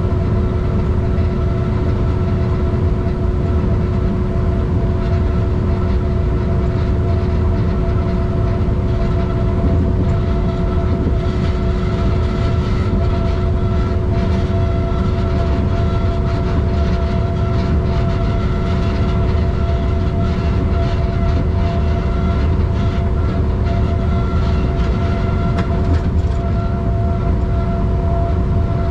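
Train running along the track at a steady speed: a continuous loud rumble with a few steady hum tones at fixed pitch that hardly change.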